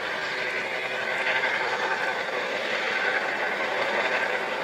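US Coast Guard HH-65 Dolphin helicopter flying low over the water: a loud, steady rush of rotor and turbine noise that swells slightly about a second in.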